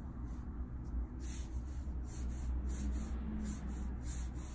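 Copic marker tip stroking across Bristol paper in repeated short strokes, about two or three a second, with a low steady hum underneath.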